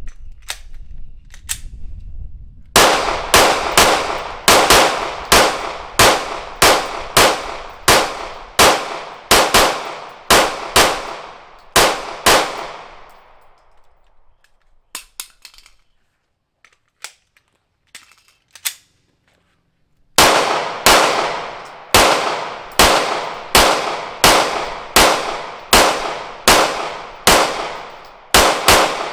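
A 9mm semi-automatic pistol fired in two rapid strings of about two shots a second, each shot sharp with a short ring after it. Between the strings there is a pause of several seconds with a few faint clicks from the pistol being handled.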